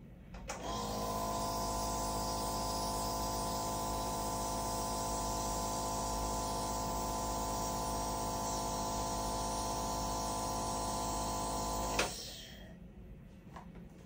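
A nebulizer machine switched on with a click and running with a steady hum for about eleven seconds, misting a dose of citric acid or saline for a cough-reflex test, then cut off with a click.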